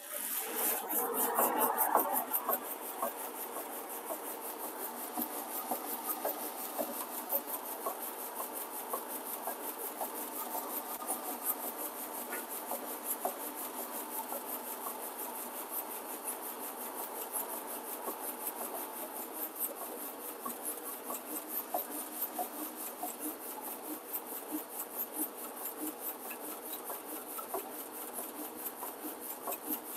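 Print shop machinery running steadily, with a fast, even rhythm of ticks.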